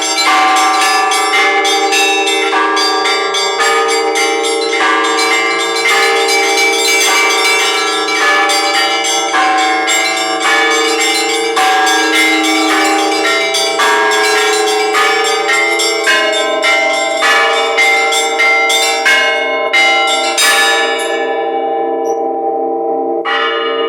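Orthodox church bells rung by a bell ringer: several bells of different pitches struck in a quick, repeating pattern over the lingering hum of the larger bells. Near the end the strikes thin out and the bells ring on for about two seconds before one more strike.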